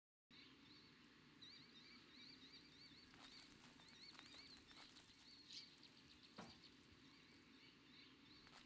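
Very faint outdoor ambience of a high, wavering chirp repeating in short runs, with a few soft clicks. It comes in after a moment of total silence.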